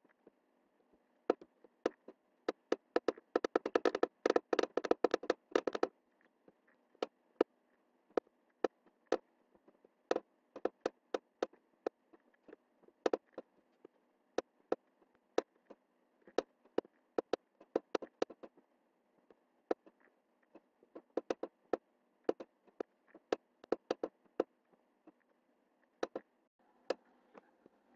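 Computer mouse button clicking irregularly, one or two sharp clicks a second, with a dense run of rapid clicks a few seconds in.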